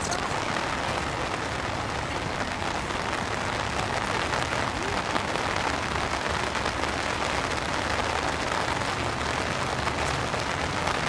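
Heavy rain falling steadily, an even, dense patter with no breaks.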